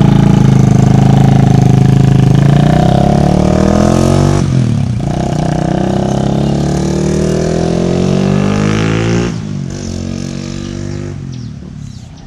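Honda RS150R's single-cylinder four-stroke engine breathing through a Cardinal Racing 32 mm exhaust with the silencer fitted, accelerating away through the gears. The note climbs, drops at a gear change about four and a half seconds in, climbs again and shifts once more about nine seconds in, growing fainter as the bike moves off.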